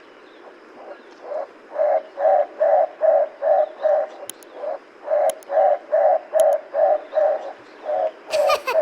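Knysna turaco giving its long series of harsh, croaking calls, about three a second. Near the end a sliding cartoon-style sound effect cuts in.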